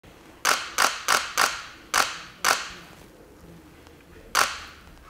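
Camera shutter firing in quick succession: six sharp clicks in about two seconds, then one more near the end, each ringing briefly in an empty classroom.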